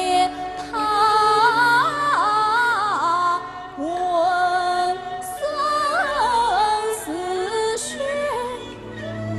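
Yue opera music: a slow, ornamented melody with sliding, bending notes in two phrases, easing off briefly about a third of the way in and again near the end.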